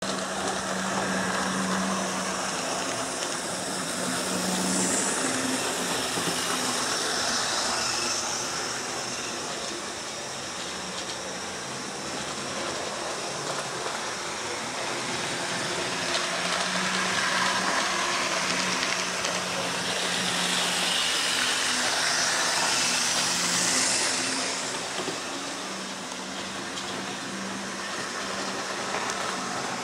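HO-scale diesel model locomotives running on a tabletop layout: a steady whir of small electric motors and the rattle of wheels on the track, swelling twice as a train passes close by.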